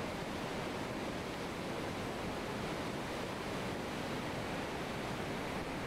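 Tsunami surge rushing in: a steady, unbroken noise of churning seawater pouring over the harbour wall and breaking against buildings.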